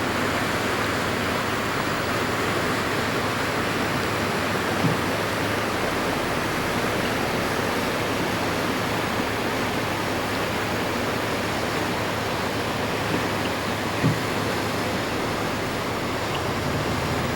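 Steady rushing roar of a flooded creek running high and fast after days of rain, with a couple of soft bumps about 5 and 14 seconds in.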